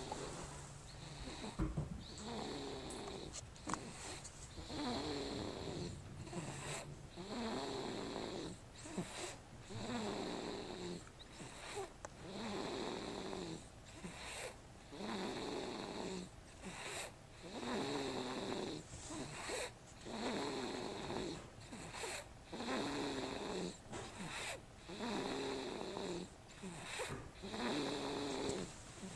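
Steady, rhythmic snoring, one drawn-out snore about every two and a half seconds.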